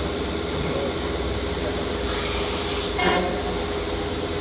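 CNC woodworking machining centre running with a steady hum and hiss. About two seconds in there is a short blast of compressed air, then a sharp clunk with a brief ring as its pneumatic saw-blade unit drops into working position.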